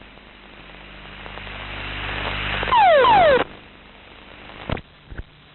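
Rushing air noise in a T-6 trainer's cockpit audio as the crew ejects after an engine failure. It grows steadily louder, then comes a loud blast with two quickly falling tones, which cuts off abruptly. Two sharp clicks follow near the end.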